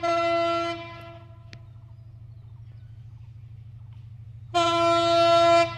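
Diesel locomotive air horn sounding two blasts, a short one at the start and a longer one near the end, over the steady low rumble of the approaching EMD GT42AC locomotive.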